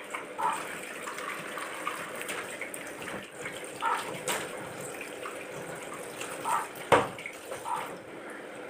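Water running from a tap as a blender's blade assembly is washed and rinsed of the acid cleaner, with light clinks and one sharp knock about seven seconds in.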